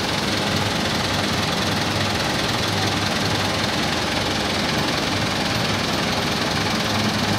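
Massey Ferguson 385 tractor's diesel engine running steadily at low revs, mixed with a continuous dense machinery din.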